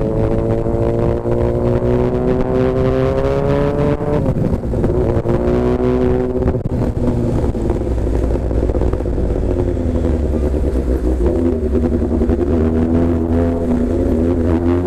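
Motorcycle engine heard from the rider's seat: revs climb for the first four seconds, the throttle closes and the engine slows down over the next few seconds, and the revs rise again near the end, over a low wind and road rumble.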